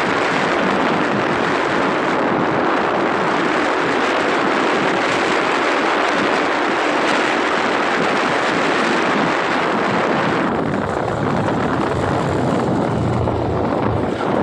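Steady, loud rushing of wind and road noise from a moving vehicle, easing a little in its hiss near the end.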